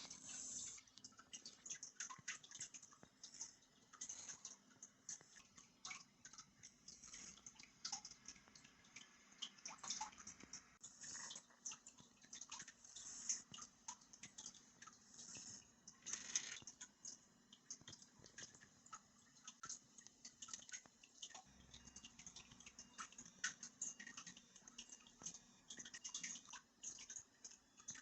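Faint, irregular small clicks and taps of hands handling a gadget and its packaging, over a faint low hum.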